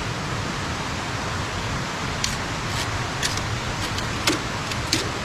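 Steady rushing of a small stream, with a string of light, sharp clicks from about two seconds in.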